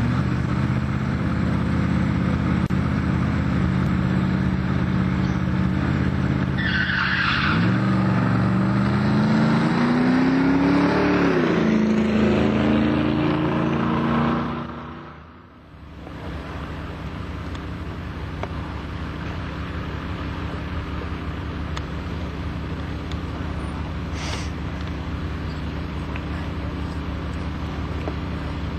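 Drag-racing car engine held at high revs on the line, then launching with a brief tire squeal; the revs climb, drop once at a gear change and climb again before the sound fades out. A steadier, quieter engine drone follows.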